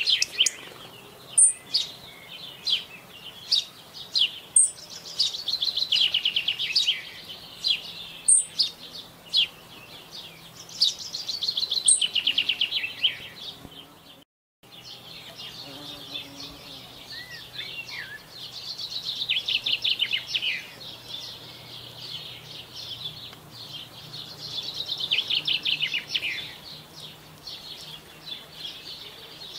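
Wild songbird singing: a loud trilled phrase that falls in pitch, about two seconds long, repeated every five or six seconds, with a thin high note between phrases. The sound drops out briefly about halfway through.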